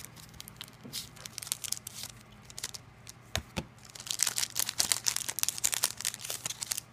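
Foil Pokémon booster pack wrapper being handled and torn open: scattered light crinkles at first, then dense, louder crinkling and tearing from about four seconds in.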